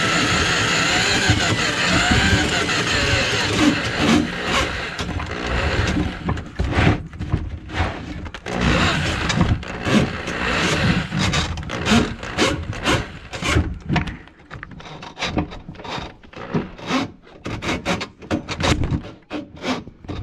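Drum drain snake working its cable into a kitchen sink drain plugged with grease. It runs steadily for the first few seconds, then breaks into short, uneven bursts of noise, about two a second, as the cable is pushed and turned in the line.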